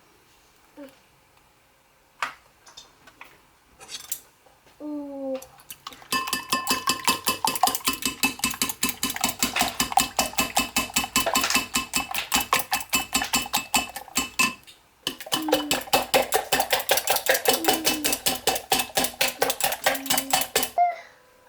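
Rapid, rhythmic metal-on-metal clinking of kitchenware, several strokes a second with a ringing tone. It comes in two long runs with a short break between them.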